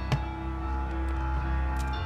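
Background music with held notes over a low bass. A sharp click sounds just after the start as a screwdriver and pliers work at a plastic crank-flashlight housing, with a fainter click near the end.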